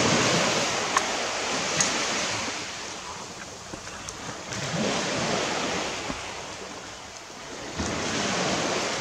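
Small waves washing onto a sandy beach, the surf noise swelling and fading three times, with a couple of light clicks.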